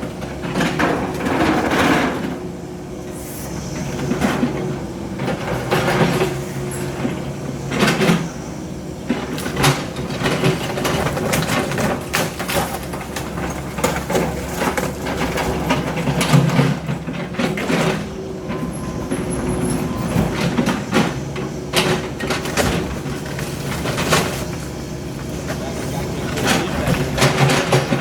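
Heavy demolition machinery running steadily, with repeated sharp cracks, knocks and crashes of building debris being broken and moved.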